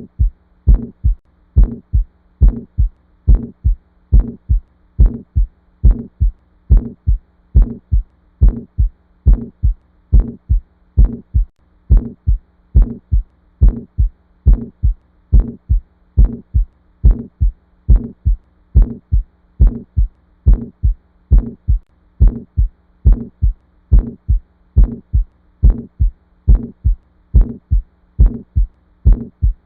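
Heart sounds: a regular heartbeat of paired lub-dub thumps, a little over one beat a second, steady throughout. A faint steady hum lies underneath.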